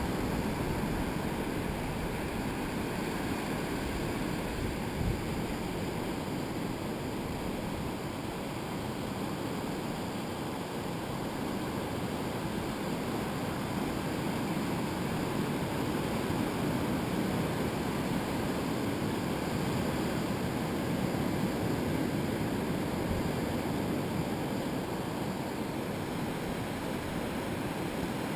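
Surf breaking and washing up a sandy beach: a continuous, even rush of waves that swells and eases slowly.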